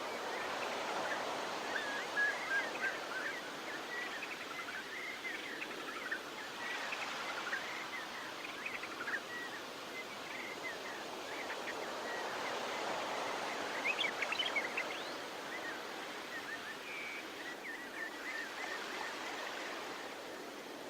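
Beach ambience: surf washing in slow swells, with many birds chirping over it, and a burst of sharper chirps about two-thirds of the way through.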